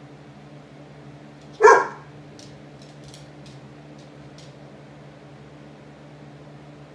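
A dog gives a single short bark about one and a half seconds in, begging for his toys, followed by a few faint clicks, over the steady hum of a box fan.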